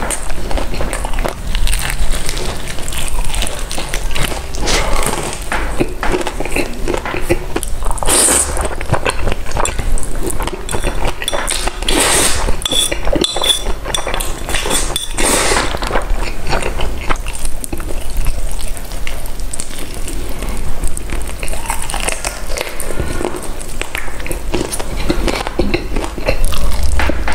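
Close-miked eating sounds: food being bitten and chewed with wet crackles, mixed with clinks of utensils against a dish.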